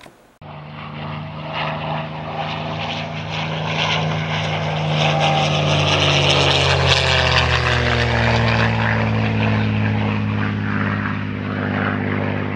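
Engine drone with several steady tones, starting suddenly, growing louder over several seconds, its pitch slowly sinking in the second half.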